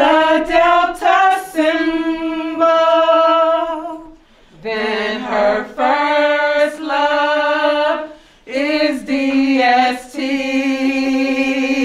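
Women's voices singing unaccompanied, long held notes in phrases with short breaks about four and eight seconds in.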